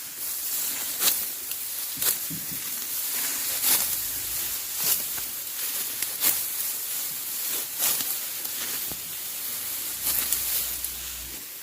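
Dry rice stalks rustling and swishing as they are cut and handled in a hand harvest, a short swish roughly every second or so over a steady hiss.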